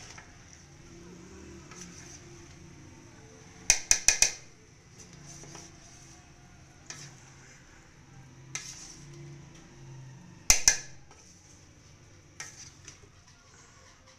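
Metal ladle stirring biryani rice in a large metal pot, scraping softly and clanking against the pot in quick clusters: four sharp strikes about four seconds in, a few single knocks, and two or three more strikes about ten seconds in.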